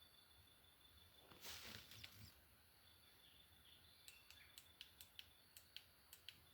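Night insects trilling steadily at a high pitch. About a second and a half in, a short harsh noise lasts about a second, and later comes an uneven run of about ten sharp clicks.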